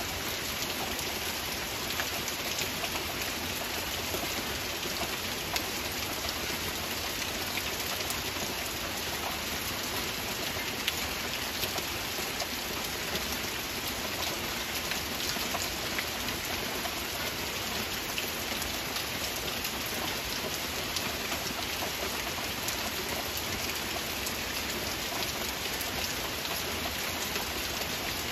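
Steady rain falling: an even hiss of many drops, with single drops ticking out sharply here and there.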